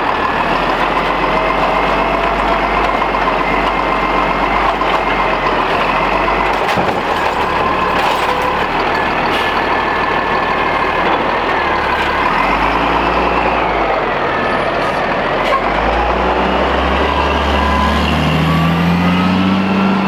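Peterbilt 320 automated side-loader garbage truck working its hydraulic arm to dump a cart, the engine revved high with a steady whine over it and its pitch rising and falling in the middle. Over the last couple of seconds the engine note climbs as the truck pulls away.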